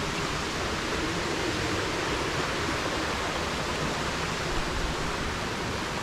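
Garden waterfall: a steady, even rush of falling water.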